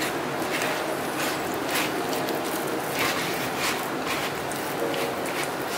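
A spoon scraping and stirring through crumbly, damp glutinous rice flour dough in a plastic mixing bowl, in short repeated strokes a little under two a second.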